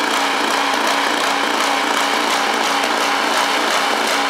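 A snowblower's small engine running steadily at a constant speed.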